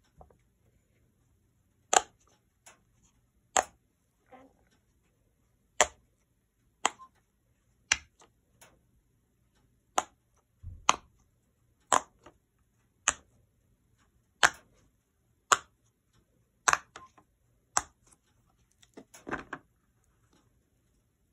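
Bubbles of a silicone snowman pop-it fidget toy pressed one at a time by a finger: single sharp pops about once a second, some in quick pairs, with a short patch of handling rustle near the end.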